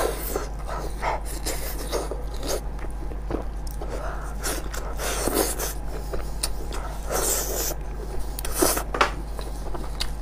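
Close-miked eating of braised sheep's head: wet, sticky tearing of meat pulled apart by plastic-gloved hands, with mouth smacks and chewing in irregular short bursts and clicks. A steady low hum runs underneath.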